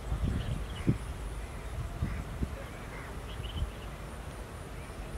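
Open-air ambience: a low, uneven rumble with a few soft dull thumps, over faint bird chirps and a thin high insect-like whine.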